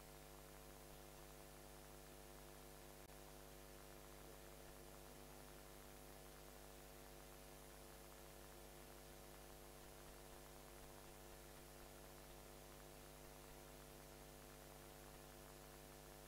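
Near silence: only a faint, steady electrical hum with hiss.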